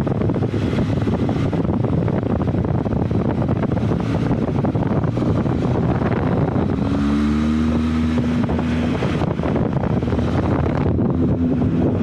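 Benelli TRK 502 X parallel-twin engine running while riding, with wind buffeting the microphone. A steady pitched tone stands out for about two seconds in the middle.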